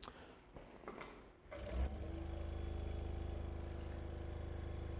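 Hawk G4 scroll saw switched on about a second and a half in, coming up to speed and then running steadily with a fast, even hum. A few faint clicks come before it.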